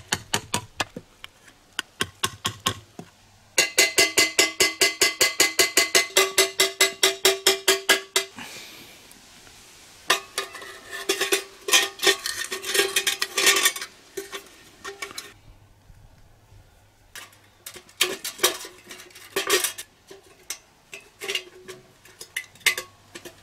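Tin can being struck and pierced with a metal tool to punch holes in it for a hand-held fire basket: sharp clicks, then a fast, even run of ringing metal strikes about five a second, and another run of ringing strikes a few seconds later, with scattered tapping near the end.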